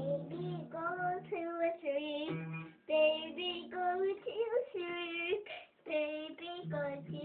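A young girl singing in a high child's voice, a string of held, wavering sung notes in short phrases with brief breaks between them.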